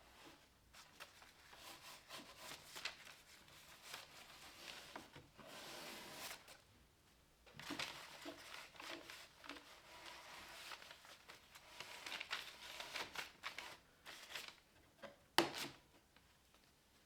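Wet wood-glue squeeze-out being wiped off a clamped glue-up: irregular rubbing and scrubbing strokes, with one sharp knock near the end.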